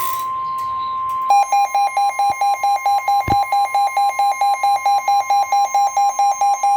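The steady single-pitch 1050 Hz Weather Alert Tone of a NOAA Weather Radio warning broadcast. About a second in, a harsher, lower electronic alarm beeping about four times a second joins it, typical of a weather radio receiver's own alert, and both run on together.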